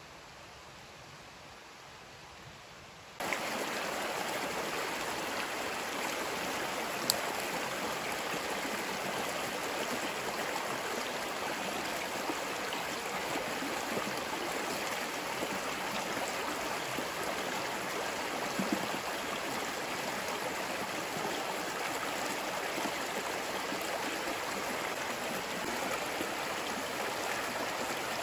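Faint hiss, then from about three seconds in a small rocky forest stream rushing steadily over stones, with one sharp click a few seconds later.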